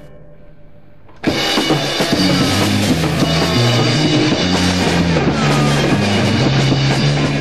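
Rock music: a quiet opening, then the full band with drums and guitar comes in suddenly about a second in.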